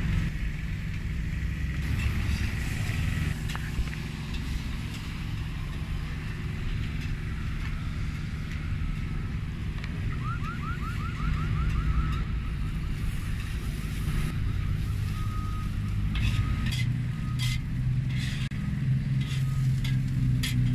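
Steady low hum of street traffic and idling engines. A short run of quick rising chirps comes about halfway through, and sharp clicks of a metal spatula on a flat-top griddle come near the end.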